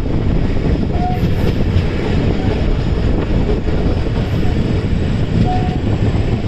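Passenger train running on the rails: a loud, steady rumble of the coaches rolling along the track, with two brief faint high notes over it.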